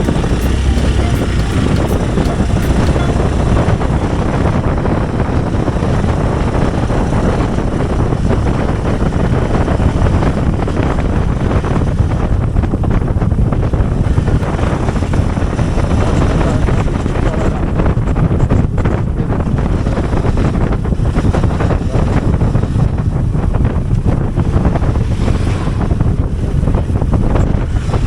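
Hero Xpulse 200 Pro's single-cylinder engine running while the bike is ridden, under heavy wind noise buffeting the microphone.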